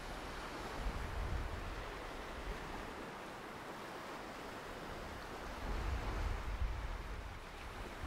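Small Caribbean waves breaking and washing up over sand and dark rocks, a steady hiss of surf. Gusts of wind rumble on the microphone, easing in the middle and coming back stronger near the end.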